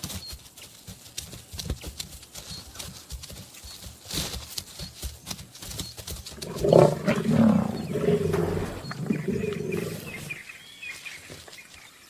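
Lions growling at a fresh young-giraffe kill, the growls loudest from about six and a half to ten and a half seconds in. Before that come scattered short cracks and rustles.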